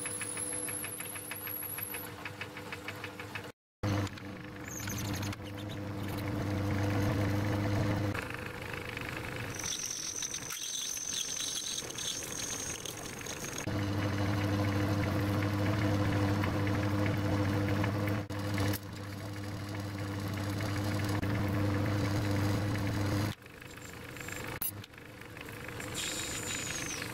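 Small metal lathe running with a steady motor hum while a tailstock drill chuck drills a small brass part. It breaks off and resumes at several cuts, with a high steady whine for a few seconds in the middle.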